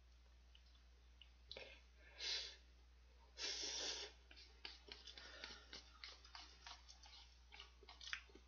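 Quiet mouth sounds of someone eating instant noodles: two short noisy breaths, the longer and louder one about three and a half seconds in, then a run of small quick chewing clicks.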